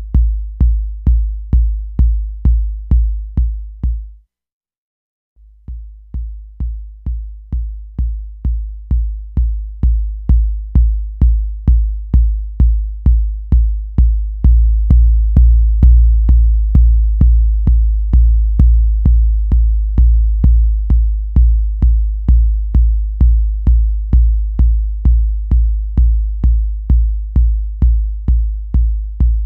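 Tip Top Audio BD808 Eurorack bass drum module, a clone of the Roland TR-808 kick, triggered in a steady pulse of about two hits a second through a dbx compressor, each hit a short click over a deep boom. The hits stop for about a second just after four seconds in, and from about fourteen seconds in they ring longer and fuller.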